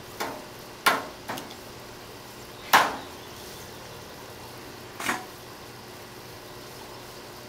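Five short, sharp knocks or clatters of something hard, irregularly spaced over quiet room tone, the loudest nearly three seconds in.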